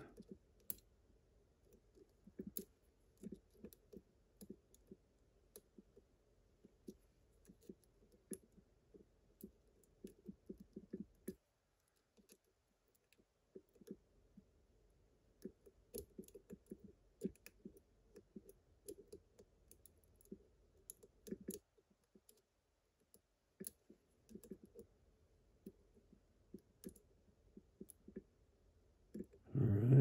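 Small irregular metallic clicks and ticks of a lock pick working the wafers of a slider cam lock held under a tension wrench, with two short pauses about a third and two thirds of the way through.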